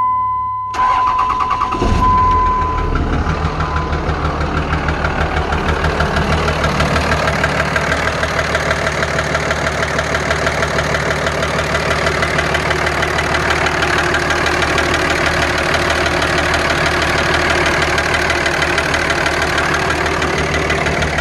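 A steady electronic chime, then the Dodge Ram 2500's 5.9 Cummins diesel cranks about a second in and catches about two seconds in. It settles into an idle with a regular knock, run with the number 1 fuel injector disconnected. The knock is only a little quieter for it, which the owner takes as a sign that another injector may have gone bad from the heat.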